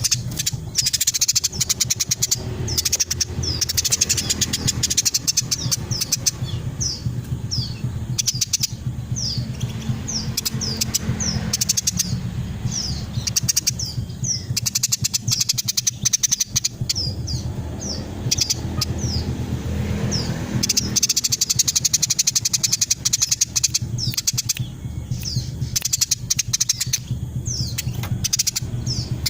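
Female Eurasian tree sparrow chirping incessantly: dense runs of short, sharp chirps and quick curved notes, with hardly a pause, over a steady low hum.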